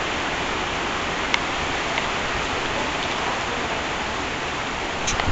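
Steady rain, an even hiss with a few sharp drops ticking and a couple of louder taps near the end.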